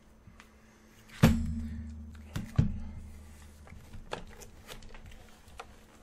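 Roomba robot vacuum being turned over and set down on a worktable: a heavy thump about a second in with a low resonance dying away, two quicker knocks soon after, then light clicks and taps of the plastic body being handled.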